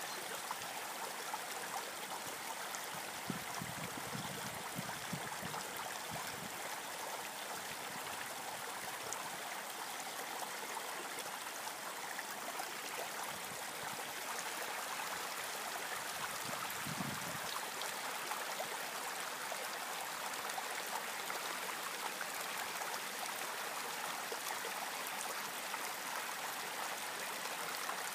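Small rocky creek running steadily over stones, an even rushing hiss. Brief low wind buffets on the microphone a few seconds in and again just past halfway.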